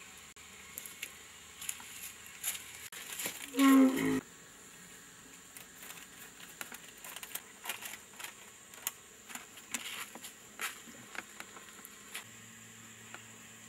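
An elephant calf gives one short pitched call about four seconds in, holding its pitch and then dropping sharply as it ends. Light clinks and taps of cups and utensils follow, as milk formula is poured and mixed.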